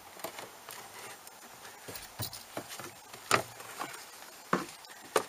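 Old cabin air filter being pulled out of its plastic housing behind the glove box: a handful of separate sharp clicks and knocks of the filter frame against the plastic, the loudest about three seconds in, with faint rubbing between.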